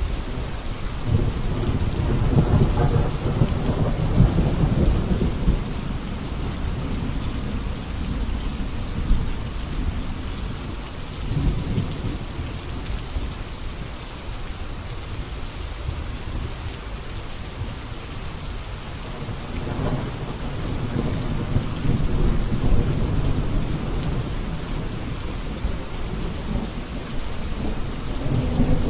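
Steady heavy rain with long, low rumbles of thunder: one building about a second in and lasting several seconds, a short one around the middle, and another swelling from about two-thirds of the way through.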